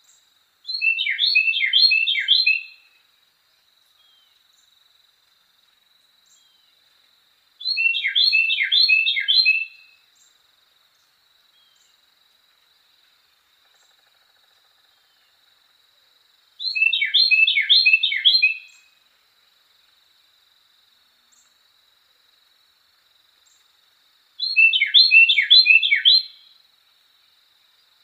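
Carolina wren singing: four song bouts of about two seconds each, spaced six to eight seconds apart, each a quick run of repeated phrases. A faint steady high tone runs beneath.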